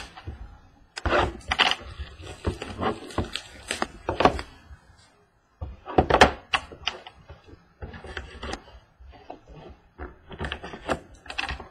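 Hands unwrapping and opening a sealed trading card box: plastic wrapper crinkling and tearing, with repeated taps and knocks of the cardboard box being handled, pausing briefly about five seconds in.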